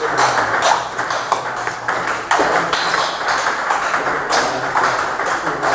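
Table tennis rally: the ball clicking sharply and repeatedly off the bats and the table.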